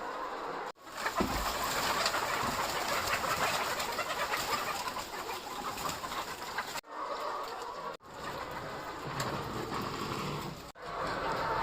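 Chickens clucking and cooing softly, broken a few times by abrupt cuts.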